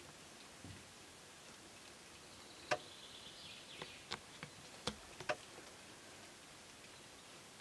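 Wild boar piglets foraging among roots and dry ground: a short run of about seven sharp clicks and snaps over a couple of seconds, the first the loudest, with a brief high, pulsing trill near the start of the run.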